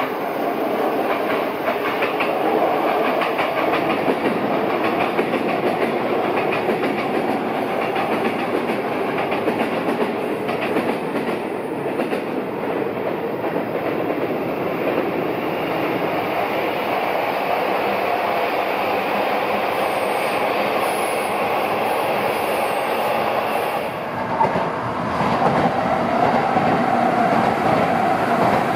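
Electric trains passing on the tracks below, a steady rumble with wheels clicking over the rail joints: first a Narita Express, then a Yamanote Line commuter train. About 24 s in the sound changes abruptly, and a Tokaido Shinkansen train runs by underneath.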